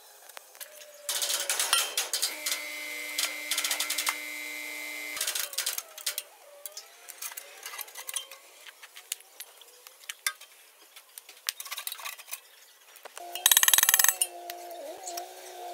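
Metal-on-metal clinking and tapping of hand tools on the steel hub of a road roller's vibration drum. A loud, steady mechanical noise runs for about four seconds near the start, and a short, loud rattle of blows comes near the end.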